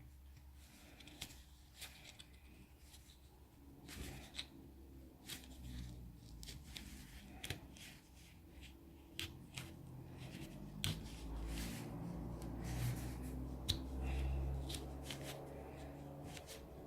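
Plastic card prying around the edge of a Samsung Galaxy S6's glass back panel: a string of irregular small clicks and scrapes as the adhesive tape lets go, over a low steady hum.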